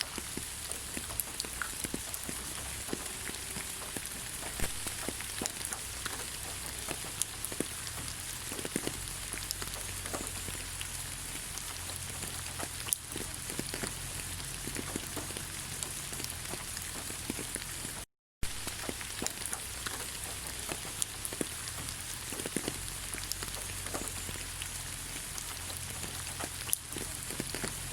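Steady rain falling on leaves: an even hiss scattered with many individual drop hits. About two-thirds of the way through, the sound drops out completely for a split second.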